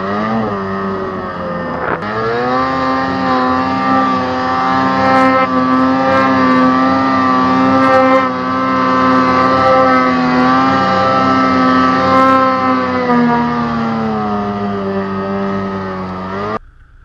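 Snowmobile engine running at high revs while riding through deep powder. The pitch climbs about two seconds in, holds with small wobbles, falls away over the last few seconds and cuts off suddenly near the end.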